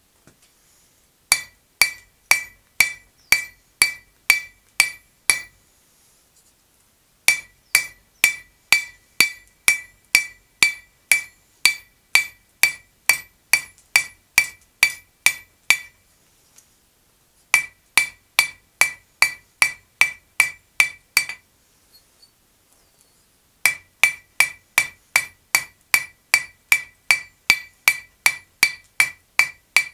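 Blacksmith's hammer striking a red-hot steel bar on an anvil, about two blows a second in four runs with short pauses between them, each blow ringing brightly off the anvil.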